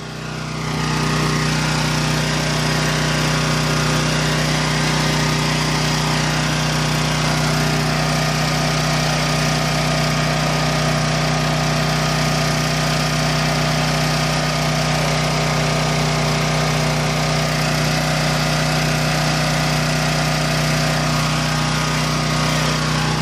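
Champion 9000-watt dual-fuel portable generator's single-cylinder engine running steadily on gasoline at governed speed, carrying a 1500-watt heater load without bogging down. The sound is fairly loud and unchanging, fading in at the start.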